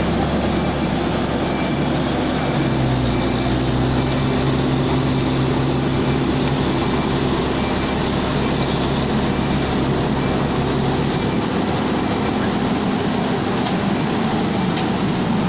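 Heavy road-works machinery engine running steadily. Its low hum shifts about two and a half seconds in, and the deepest rumble falls away at about eleven seconds.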